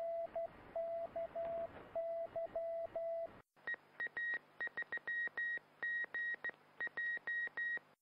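Two Morse code radio signals in turn. First, shortwave Morse: a low tone keyed in dots and dashes over a hiss of static. Then, after a brief cut about three and a half seconds in, the Morse identifier of a VHF amateur radio repeater: a higher tone keyed in quicker, shorter dots and dashes over a faint hum.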